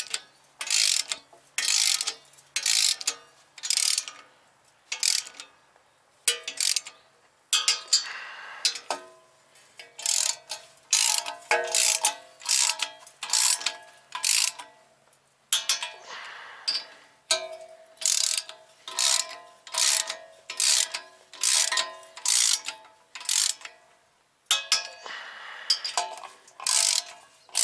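Hand ratchet with a 17 mm socket being worked in quick back-and-forth strokes to run down and tighten the stub-axle nuts. It clicks about twice a second, with a couple of short pauses as it moves from nut to nut.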